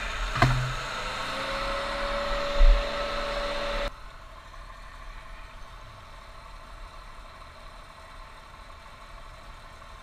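An engine running steadily, with a sharp knock about half a second in. The louder sound cuts off abruptly about four seconds in, leaving a fainter steady engine hum.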